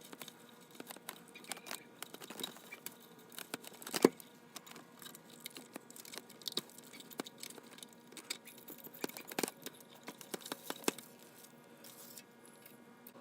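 Scattered small clicks and taps of a mandolin and its small metal hardware being handled, with one sharper knock about four seconds in.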